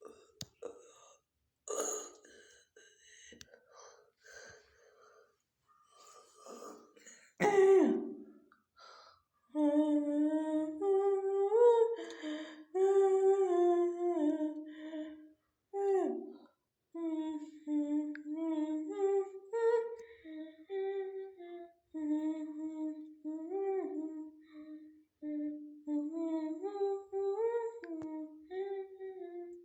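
A person humming a tune in a fairly high voice, holding notes and stepping up and down between them, starting about nine seconds in. Before it there are scattered light clicks and a short loud burst.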